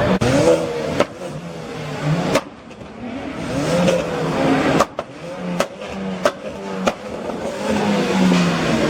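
Car engine revving, its pitch rising and falling several times, with sharp cracks scattered among the revs.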